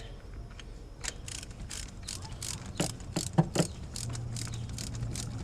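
Hand ratchet clicking in quick runs of clicks as it backs a thread-cleaning tool out of the spark plug hole.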